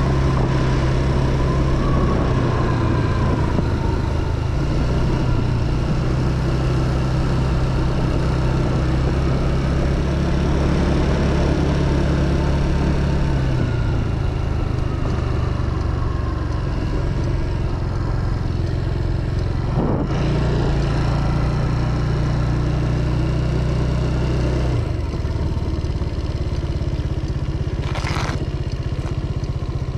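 Motorcycle engine running steadily while riding, its note shifting with changes of speed or gear about halfway through and again near the end, with a single sharp knock in between.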